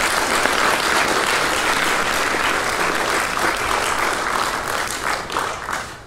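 Audience applauding, dying away in the last second.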